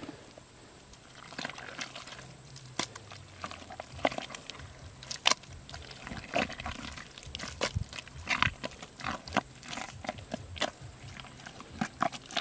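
Hands digging and scooping in thick wet mud at the bottom of a hole: irregular wet squelches, sucks and slaps.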